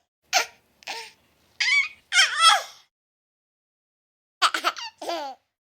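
A baby vocalizing in a series of short, high-pitched cries and squeals whose pitch bends up and down. The sounds come in separate bursts with dead silence between them, with a long pause in the middle.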